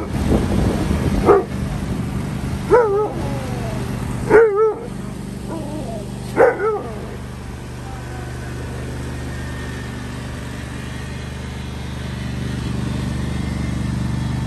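An Alaskan malamute gives five short barks with a wavering pitch in the first seven seconds, over the steady running of a Husqvarna ride-on lawn mower's engine, which grows a little louder near the end.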